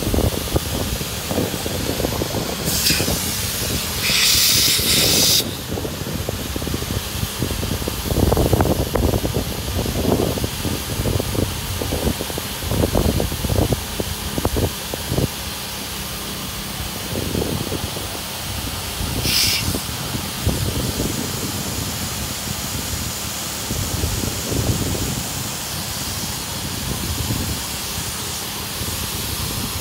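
Generator-powered electric air pumps running steadily, blowing air through hoses into an inflatable deck and lounger chambers. Louder bursts of hiss come about three to five seconds in and again around nineteen seconds, over irregular low rumbles.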